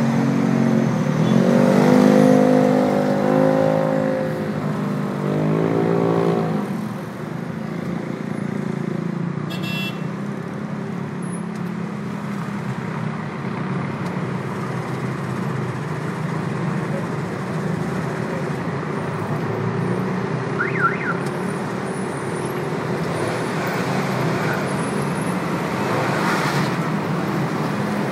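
Continuous traffic on a busy multi-lane city avenue, vehicles passing steadily. For the first seven seconds a nearby vehicle engine is loudest, its pitch rising and dropping as it accelerates, before it fades into the steady traffic noise.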